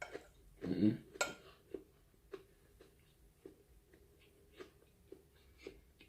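Close-up eating sounds: slow chewing with soft mouth clicks about every half second, after a short hummed sound and a sharp click near the start.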